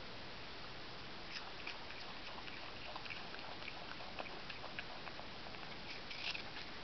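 Brushtail possum chewing a piece of fruit: faint, irregular crunching clicks over a steady background hiss, with a small cluster of clicks about six seconds in.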